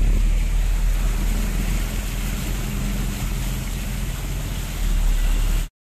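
Inside a car driving through a flooded street in the rain: a steady low rumble of the car with a hiss of water over it. It cuts off abruptly just before the end.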